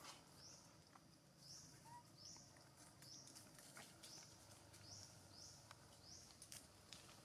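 Faint forest ambience: a short, high chirp repeats roughly once a second, with a few soft ticks.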